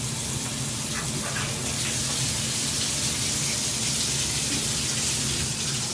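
Shower running steadily, water spraying into the shower pan. It is run as a test of a drain line that has just been jetted clear of a clog.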